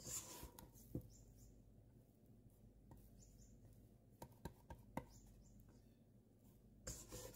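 Faint scraping and light clicks of a plastic dough scraper against a metal mixing bowl as soft, wet bread dough is worked. There is a brief scrape at the start and again near the end, a sharp tick about a second in, and a few small knocks around four to five seconds.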